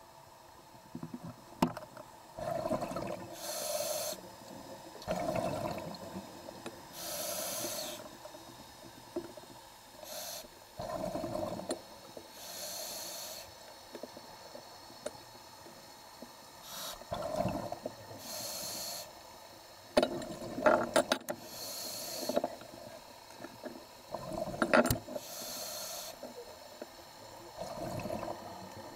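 Scuba diver breathing through a regulator underwater: a high hiss of air on each inhale alternates with the bubbling gurgle of each exhale, about six breaths at an even pace.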